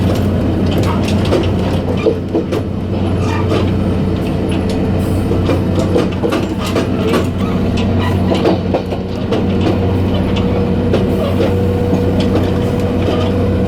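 Taiwan Railway diesel multiple unit heard from the gangway between cars while running: a steady low diesel drone with frequent knocks and rattles from the car connection and wheels. A steady higher whine grows in about halfway through.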